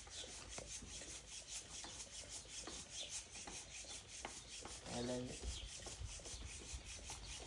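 Bicycle tyre being pumped up with a hand pump: quick, even strokes of air hissing through the pump.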